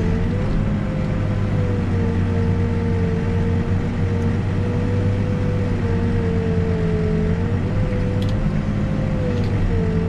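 Backhoe's diesel engine running steadily, heard from inside the cab, with a held whine above the engine hum that wavers slightly in pitch.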